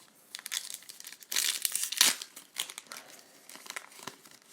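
Trading card pack wrapper being crinkled and torn open by hand, in irregular crackling bursts that are loudest about a second and a half in.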